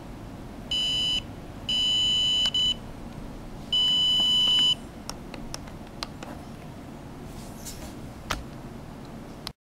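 Electronic beeper of a Dermaray handheld laser sounding four high beeps, the last about a second long, as its buttons are pressed and the treatment is paused and ended. Faint clicks follow, one sharper near the end.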